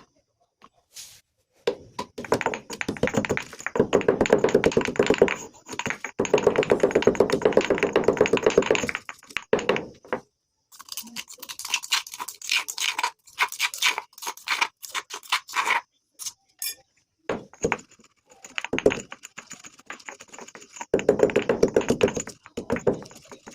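Pink and yellow coloured laddu balls of a crumbly material being crushed, in long bouts of dense, rapid crackling crunches. The bouts fall into three stretches, broken by short pauses about nine and sixteen seconds in.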